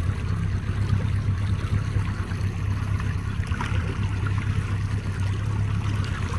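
Boat's outboard motor running steadily at trolling speed, a low hum, with water rushing along the hull.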